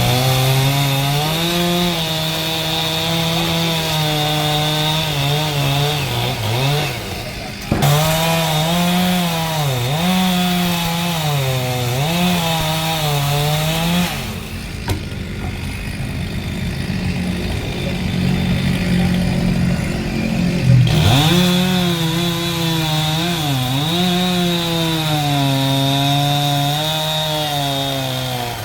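Two-stroke chainsaw running at high revs and cutting wood, its pitch dipping and recovering again and again as the chain bogs down under load. For several seconds in the middle it runs weaker and rougher, then it comes back up to full cutting speed.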